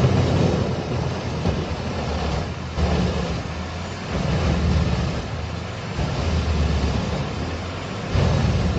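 A heavy machine's engine running, its low drone rising and falling in loudness as the load changes, with a louder surge near the end.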